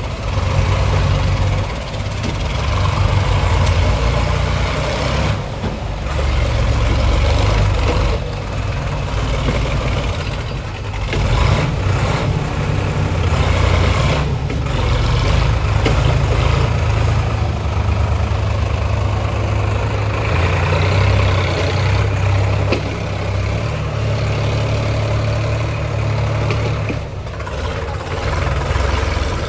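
Heavy diesel engine running, its level rising and falling every few seconds.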